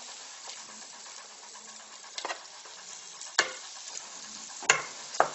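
Sliced onions and butter sizzling gently in a frying pan as they cook down slowly, stirred with a metal skimmer, with four sharp knocks of the skimmer against the pan and bowl in the second half.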